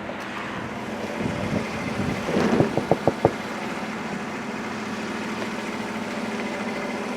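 A steady low engine hum, like a motor vehicle idling. There is a short run of sharp knocks and clatter about two and a half to three seconds in.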